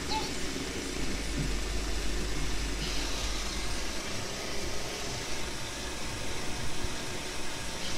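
iRobot Roomba 651 robot vacuum running, a steady whirring hiss with a low hum beneath.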